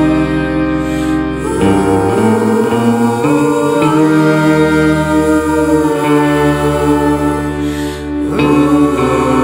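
Background music: slow, sustained chords that change every couple of seconds, with a gliding melodic line over them.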